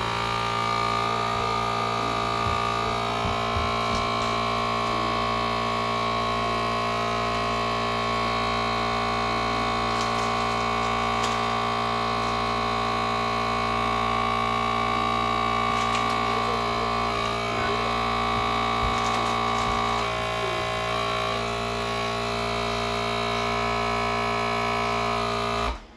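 FoodSaver vacuum sealer's pump running with a steady hum, pulling air through its handheld accessory hose from a worn reusable zipper bag, then switching off abruptly at the end. The bag is not pulling down properly; the sealer is not working well on this worn bag.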